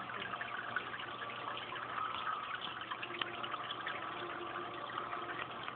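Steady rush of running water, with small crackles throughout.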